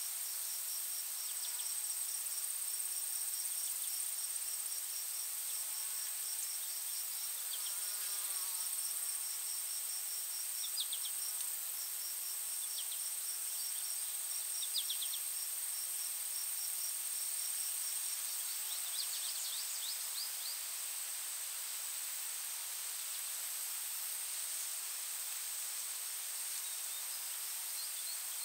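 Forest insects singing: one steady, high-pitched trill, with a second insect's rapid, even chirping of about four pulses a second that stops about two-thirds of the way in. A few short bird chirps sound now and then over a soft steady hiss.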